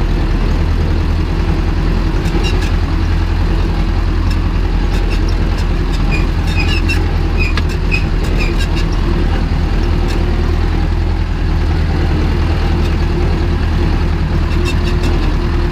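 Old tractor engine running at steady revs while the tractor is driven, heard from inside its open cab. A few faint clicks come through near the middle.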